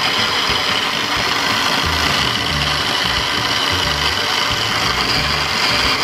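Small electric mini food chopper running continuously, pureeing fresh corn kernels into a mash. A steady high motor whine, with an uneven low rumble joining about two seconds in.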